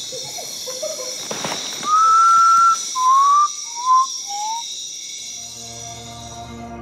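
A series of four clear whistles: one long note, then three short rising slurs, each a step lower in pitch. Under them runs a steady, high chorus of night insects, and soft ambient music fades in near the end.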